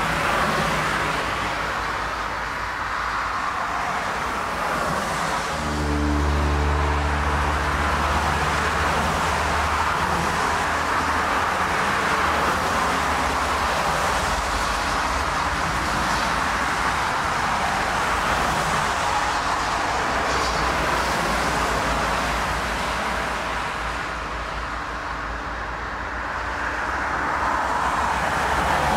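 Four-engine Airbus A340-600 jet airliner, its Rolls-Royce Trent 500 turbofans running at takeoff power, heard as a steady roar across the runway that swells near the end as it rolls toward the microphone. A low steady hum joins in for a few seconds about six seconds in.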